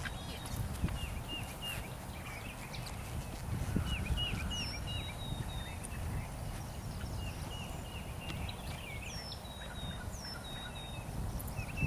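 Birds calling in repeated short chirps, in little runs of three or four, over a steady low rumble.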